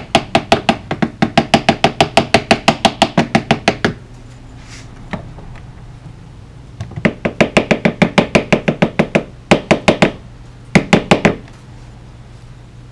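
Rapid tapping of a small mallet on a wooden block held against a guitar neck's nut, to knock the nut loose. The taps come about six a second for around four seconds, stop, come in a second run of about three seconds, then end with a short burst.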